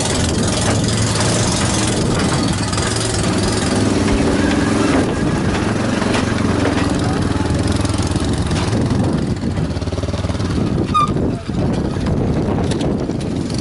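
Small motorbike engines running at low revs as riders roll off a wooden ferry, mixed with people talking.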